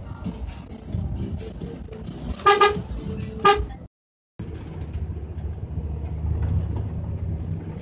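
A vehicle horn sounds two short blasts, a second apart, over the rumble of a truck cab's engine and road noise. The sound cuts out for about half a second, then a steady low engine and road rumble runs on.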